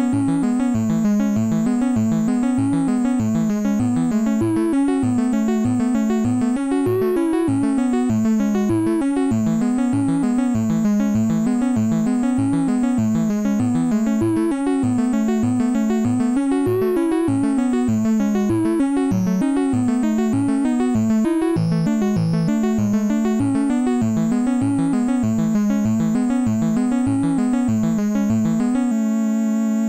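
Instrumental electronic music: a synthesizer line wavering up and down in pitch over a fast, even pulse. Near the end the pulse stops and a held chord sounds on alone.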